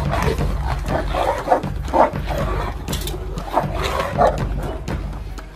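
Fight between a Kangal shepherd dog and a horse: growling, snarling and barking in short irregular bursts.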